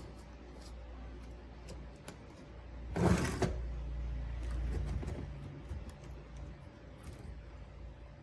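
Workbench handling noises: scattered light clicks, with a brief louder rush of noise about three seconds in.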